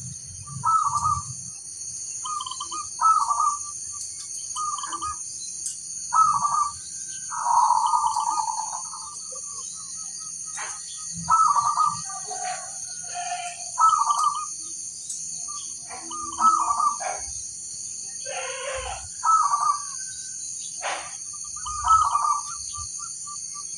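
Zebra dove (perkutut) cooing, one short phrase every two to three seconds, about ten times, over a steady high hiss.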